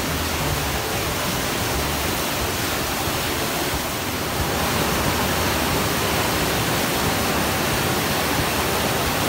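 Steady rushing of wastewater flowing through the screen channel and falling into the wet well, a little louder about four and a half seconds in.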